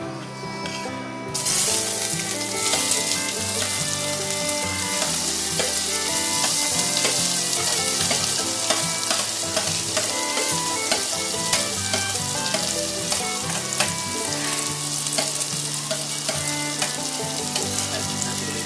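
Chopped onion hitting hot sesame oil in a pan and sizzling steadily. The sizzle starts suddenly about a second and a half in, with scattered sharp ticks and spits, and runs over background music.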